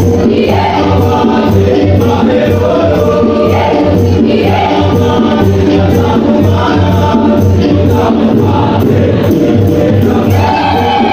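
University choir of men and women singing together over a steady beat.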